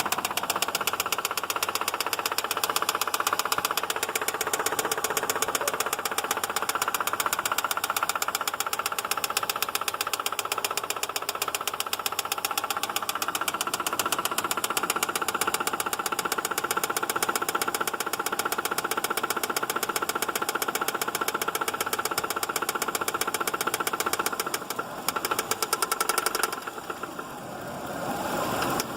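2006 Subaru Outback engine running with a rapid, steady, even knock keeping time with the engine. Near the end the sound wavers and drops off briefly, then picks up again.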